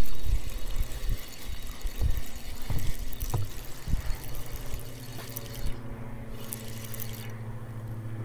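Water sloshing and trickling, with irregular low knocks; a steady low hum comes in about halfway through.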